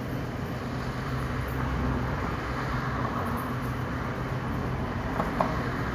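Street traffic: cars running at low speed, with a steady low engine hum and road noise.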